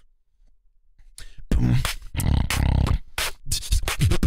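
Human beatboxing. After a second's pause it comes back with low hummed bass tones broken up by sharp percussive clicks, then cuts off abruptly at the end.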